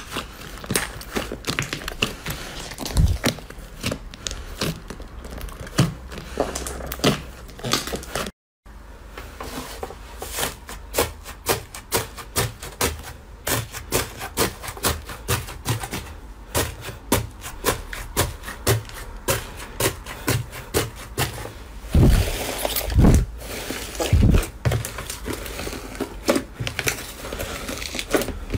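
Slime being squeezed, poked and pressed by hand, making a dense run of sticky clicks and small pops. There is a brief gap about eight seconds in, and a few heavier thumps near the end.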